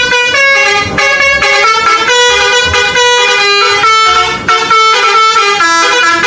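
Telolet bus horn, a multi-tone air horn playing a fast tune whose notes change about every third of a second without a break.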